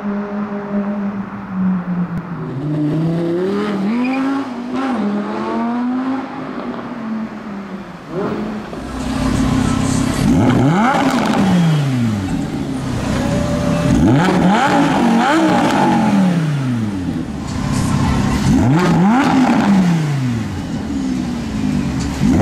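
Supercar engine idling, then revved: a few short blips, then four hard revs in the second half, each climbing in pitch and dropping quickly back to idle.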